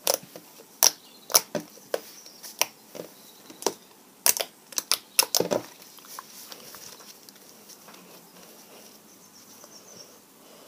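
Homemade butter slime being poked and squeezed by hand: sharp, wet clicks and pops, about a dozen in the first six seconds, then only faint squishing.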